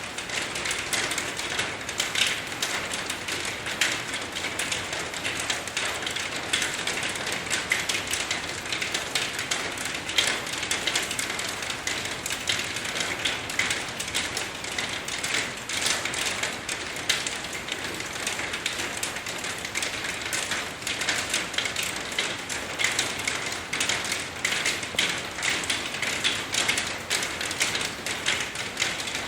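Steady rain: a dense, even patter of many small drops, with no lulls.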